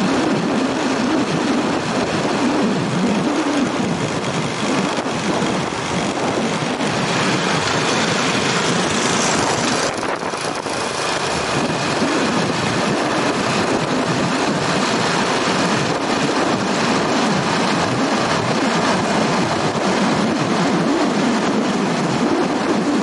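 Motorbike engine running while riding along a street, its pitch wavering up and down, under a steady rush of road and wind noise. The hiss grows louder for a few seconds partway through.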